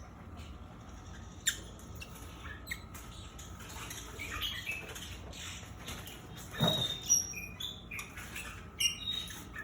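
Short, high squeaky chirps from a caged breeding pair of birds, with a few sharp clicks and a louder knock about two-thirds of the way in.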